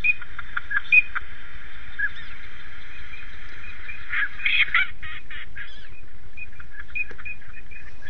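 Ducks calling, many at once: a steady chorus with sharper single calls standing out over it, rising to a louder cluster of calls a little past the middle.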